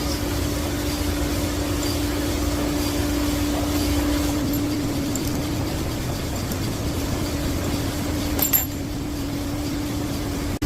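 Steady low mechanical hum carrying one constant tone, with a single sharp click about eight and a half seconds in.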